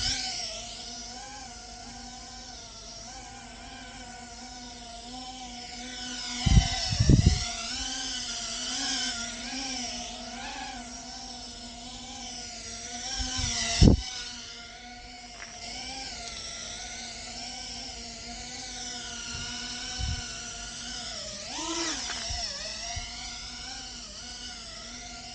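GEPRC Phantom toothpick quadcopter's brushless motors and propellers whining, the pitch wavering up and down as the throttle changes. A few low thumps come about a quarter of the way in and again just past halfway.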